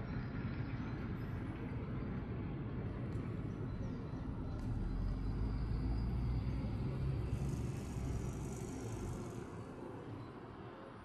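Low, steady rumble of outdoor road traffic, swelling about halfway through and fading toward the end.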